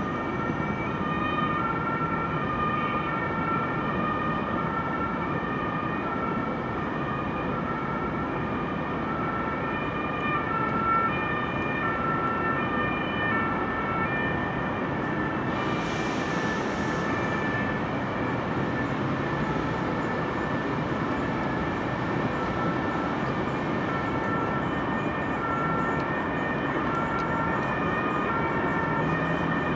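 Two-tone emergency vehicle siren alternating between a high and a low note, which drops away for several seconds in the middle, over a steady hum of city and railway noise. A brief hiss comes about halfway through.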